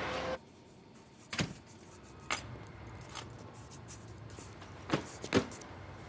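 A held tone cuts off just after the start. Four separate sharp clicks and knocks follow, the last two close together near the end.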